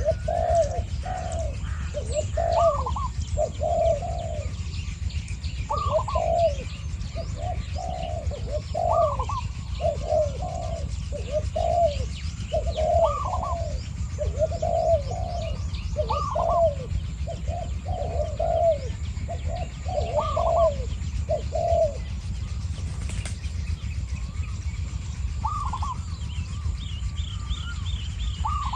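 Spotted doves cooing over and over, a caged decoy dove and a wild dove calling back and forth in repeated low phrases, each with a short rising note. The cooing pauses for a few seconds near the end, then starts again, with faint chirps of small birds and a low steady rumble underneath.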